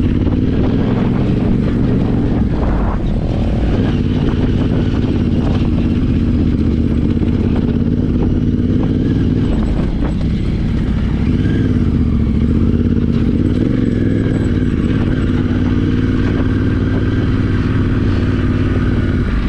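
Yamaha Ténéré 700's parallel-twin engine running steadily while riding, its pitch rising and falling a little with the throttle.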